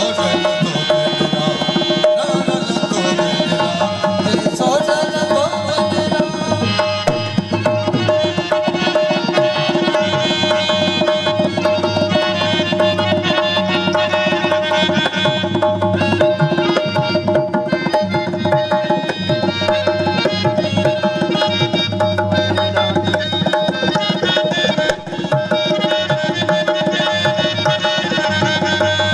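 Live music: tabla drumming a quick, steady rhythm over steadily held melodic tones.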